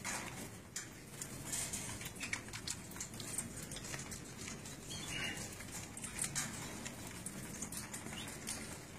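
Cockatiels pecking at a boiled corn cob and moving about on the cage's wire floor: a scatter of small clicks and taps, with a couple of short scratchy sounds about five and six seconds in.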